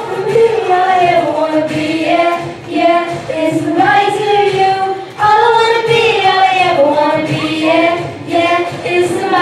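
Four young girls singing a song together into handheld microphones, holding notes that slide up and down in pitch.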